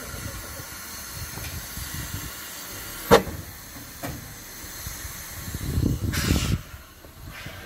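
Narrow-gauge steam locomotive standing and hissing steam. A single sharp knock about three seconds in, and a louder rush of noise a little before the end.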